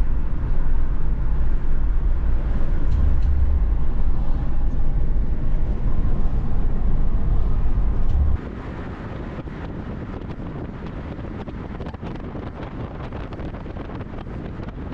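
Steady low rumbling noise of a moving car, like road and wind noise. About eight seconds in it drops suddenly to a quieter, steadier noise.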